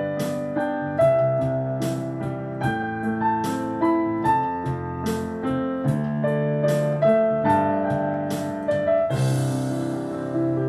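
Piano playing a slow ballad melody over sustained chords, notes struck about two a second. About nine seconds in, a brief wash of hiss like a cymbal sounds under the chords.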